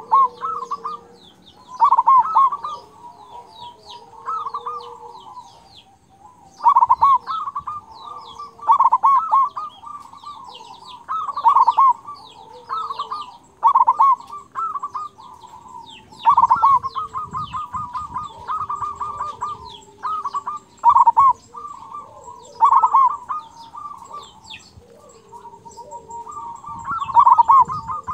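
Zebra dove (perkutut) singing its staccato cooing song, a loud phrase about every two seconds, each with the full 'kung' notes prized in a strong local singer. Fainter high chirping runs behind it.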